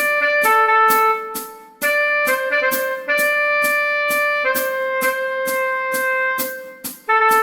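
Tenor saxophone playing a song melody in held notes, over a steady ticking beat of about two to three clicks a second.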